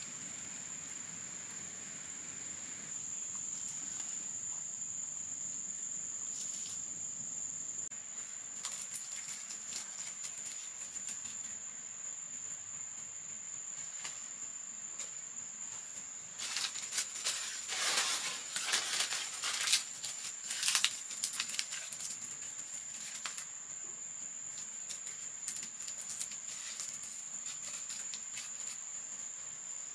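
Steady high-pitched drone of insects. A flurry of rustling and clicking comes a little past the middle and lasts several seconds.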